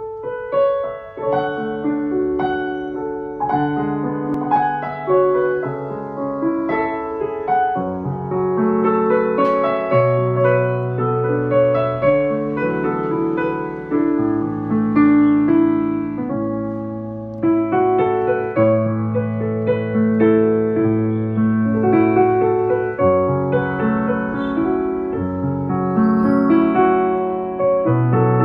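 Yamaha Clavinova CLP-535 digital piano played with both hands, a flowing piece of held chords under a melody in its grand piano voice.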